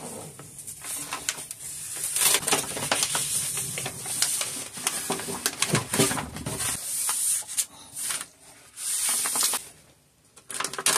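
Peel-and-stick wallpaper being hung by hand: the paper backing crackles as it is peeled off the panel, and a palm rubs and smooths the sheet flat against the wall, in irregular bursts of crinkling and rubbing.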